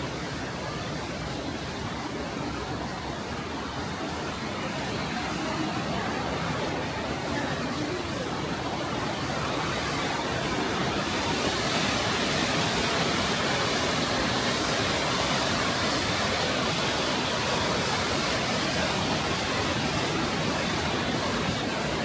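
Steady rushing of a waterfall, a dense even wash of water noise that swells louder and brighter about ten seconds in.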